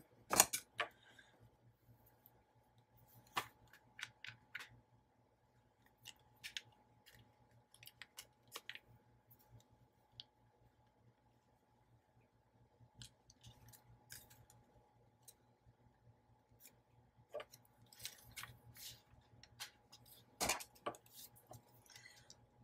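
Small hand-held hole punch squeezed again and again, giving scattered clicks and snaps with paper handling, the sharpest about half a second in and again near the end. The punch is failing to cut through the plastic-coated piece.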